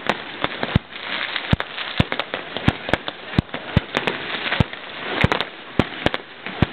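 Aerial fireworks display: shells bursting in a quick, irregular run of sharp bangs, two or three a second, over a constant hiss.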